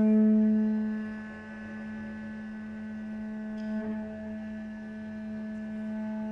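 Cello playing a sustained bowed drone on one steady low note, loud at first and easing to a softer level about a second in, with a slight catch near four seconds as the bow changes direction.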